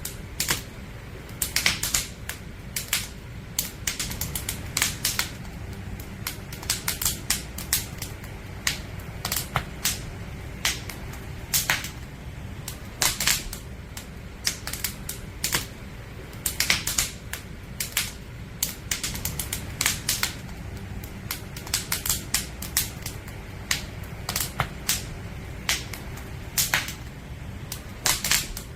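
Wood fire crackling: irregular sharp pops and snaps of burning firewood, several a second, over a steady low rumble.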